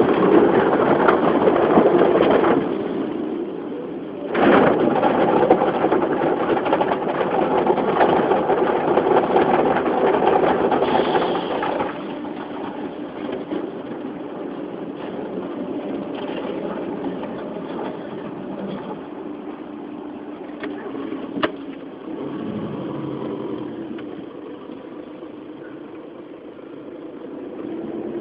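Audi A3 1.9 TDI's four-cylinder turbodiesel heard from inside the cabin, running at idle and then pulling away. A loud rushing noise covers the first twelve seconds, broken by a short dip about three seconds in. One sharp click comes about twenty seconds in.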